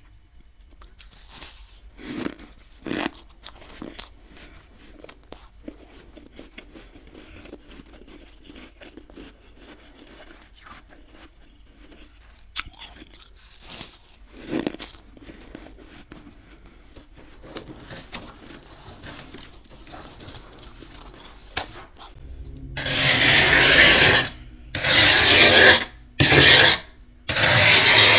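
Thick freezer frost crunching and crackling in scattered, quieter bursts, then a metal-bladed scraper dragged hard through the frost in about five loud rasping strokes over the last five seconds.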